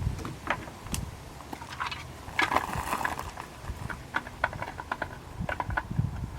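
Scattered clicks and taps of hand tools and small plastic parts being worked behind a car's front bumper, with a brief scraping rustle about two and a half seconds in.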